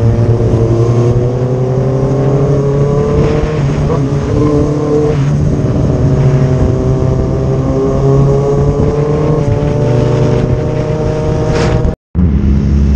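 Motorcycle engine running at highway speed with wind and road noise. Its pitch climbs slowly, drops about five seconds in, then climbs again. The sound cuts out for an instant near the end.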